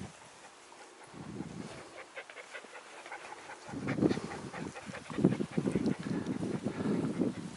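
A dog close by, making sounds in several short bursts, with the longest and loudest stretch in the second half.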